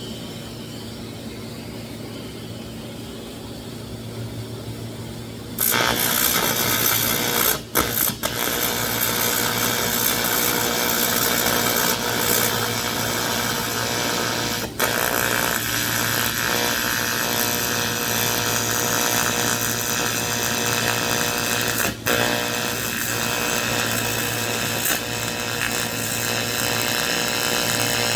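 AC TIG welder arc buzzing and hissing steadily while welding aluminum, starting suddenly about six seconds in after a low electrical hum. The arc breaks off briefly a few times.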